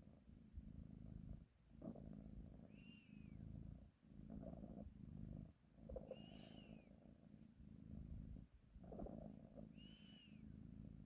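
Sleeping domestic cat purring: a soft low rumble that breaks off briefly between breaths, every one and a half to two seconds. A faint high tone rising and falling recurs about every three and a half seconds.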